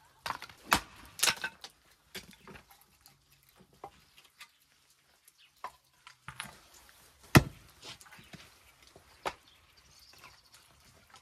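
Hatchet splitting kindling on a wooden chopping block: several sharp strikes at uneven intervals, the loudest about seven seconds in.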